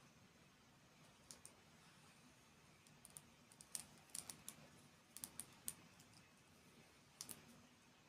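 Light, sharp clicks and taps in small irregular clusters over near silence.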